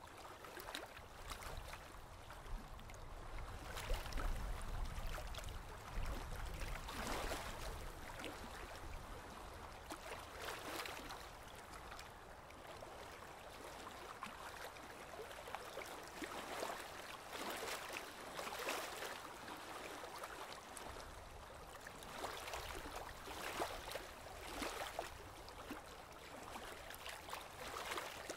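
Choppy East River water splashing and sloshing against the pier in irregular surges every second or two, with a low rumble about four to seven seconds in and again near the end.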